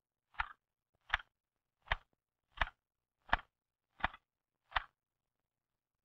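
Keys of an L.C. Smith typewriter struck one at a time: seven crisp, single keystrokes at an even, deliberate pace of about one and a half a second, ending about a second before the end.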